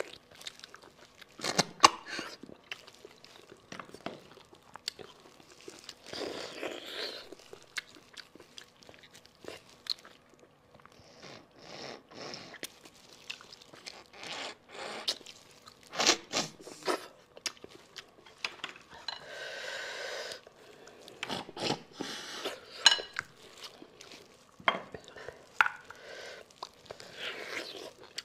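Close-up eating sounds of a person sucking and gnawing at a braised sheep bone for its marrow: wet sucking and slurping stretches broken by sharp crunches and clicks of teeth on bone, with one longer suck about two-thirds of the way in.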